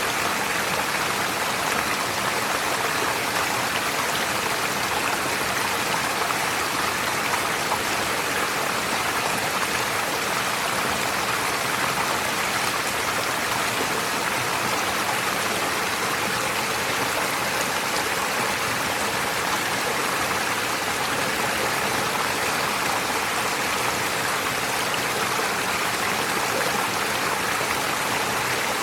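Forest stream flowing over stones: a steady, even rush of water with no breaks.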